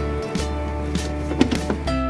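Background music: a light, cheerful tune with plucked string notes.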